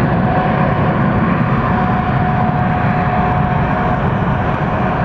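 Boeing 747-8 freighter's jet engines running loudly at close range, a steady roar with a thin high whine held throughout.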